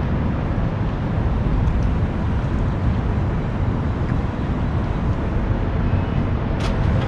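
Steady outdoor background noise with a heavy low rumble, and one small click near the end.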